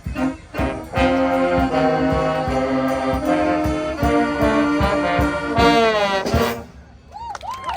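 Brass-band music with a steady drum beat; the piece ends about six and a half seconds in on a downward-sliding final chord. Voices can be heard faintly near the end.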